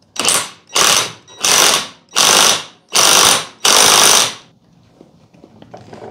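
Ratchet-head wrench tightening the yoke mounting nut on a New Process 241C transfer case's front output shaft toward 110 foot-pounds: six quick ratcheting strokes about two-thirds of a second apart, stopping about four and a half seconds in.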